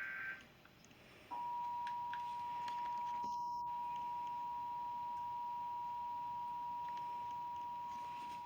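The last fraction of a second of the alert header's buzzing data burst, then about a second later the Emergency Alert System two-tone attention signal comes on and holds steady for about eight seconds. It announces the start of an emergency alert broadcast, here a severe thunderstorm warning.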